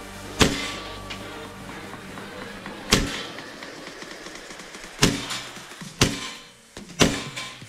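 Background music with five sharp single shots from an airsoft gun, fired one at a time: two spaced a few seconds apart, then three about a second apart.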